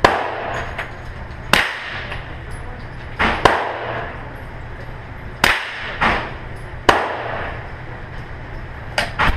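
Pistol shots fired one at a time at an irregular pace, about nine in all, some in quick pairs, each with a short echo off the walls of the indoor range.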